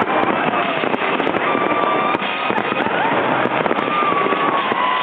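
Fireworks display with a continuous dense crackling and popping of many shells, over a music soundtrack.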